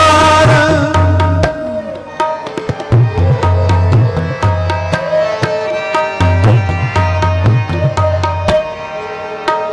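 Kirtan accompaniment: a tabla plays a rhythm of sharp strokes and deep booming bass strokes under sustained harmonium notes. A sung line trails off about a second in.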